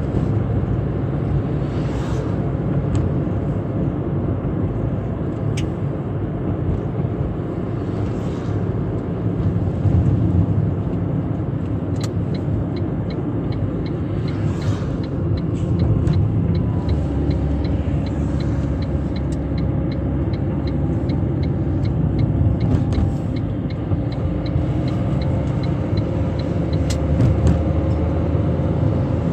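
Car being driven on a wet road in the rain, heard from inside: a steady low rumble of engine and tyres with a few scattered clicks. A faint, even ticking at about three a second sets in about twelve seconds in and stops near the end.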